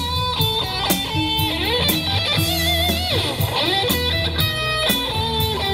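Live band playing: an electric guitar carries the melody, with a sliding, wavering phrase near the middle, over a drum kit and keyboard with a steady low bass line.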